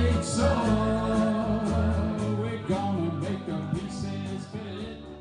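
Rock and blues band music with singing, guitar and a steady drum beat, fading out gradually.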